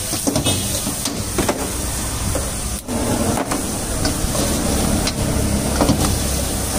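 Steel ladle scraping and knocking against a wok as chicken fried rice is stir-fried and tossed, over the steady hiss of a high-flame gas burner and frying rice. The ladle knocks come irregularly, a few each second or two.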